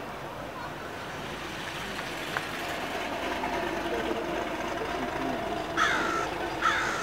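Two loud bird calls near the end, each falling in pitch, over a steady outdoor background noise.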